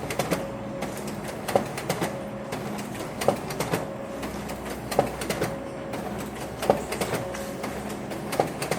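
Office printer working in a regular cycle: a sharp click about every second and three-quarters, each followed by a short whirring hum, over a low steady hum.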